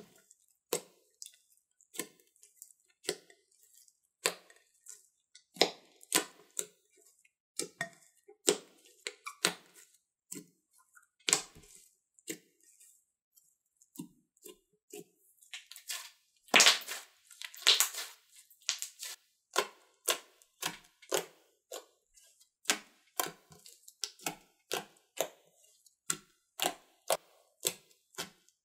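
Thick glossy slime being squished and kneaded by hand, giving a string of short, irregular clicks and pops, with a louder run of crackling about halfway through.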